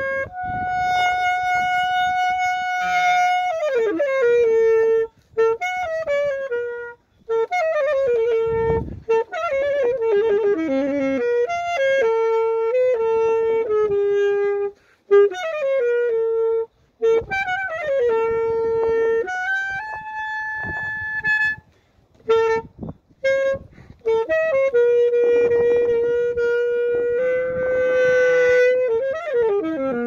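Saxophone playing a slow melody: a single line of held notes, many sliding down in pitch into the next, broken by a few short pauses.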